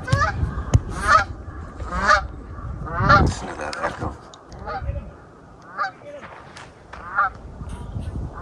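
Geese honking, a short call about once a second, one after another.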